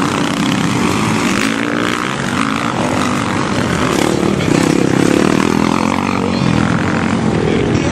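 Several motocross bike engines revving, their pitch rising and falling as they run over the track, with more than one engine heard at once.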